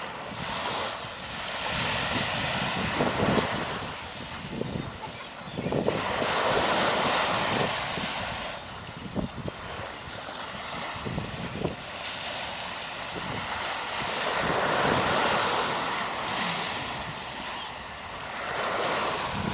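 Sea waves breaking and washing in, the surf swelling and fading about every four to five seconds.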